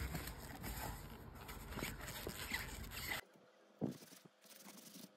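Suede leather of a jacket being flexed and rubbed between fingers at its overlapping seams: a dry rustling scrape with small ticks, the stiff creaky leather that was still left after washing. About three seconds in it cuts off, and a single soft knock follows.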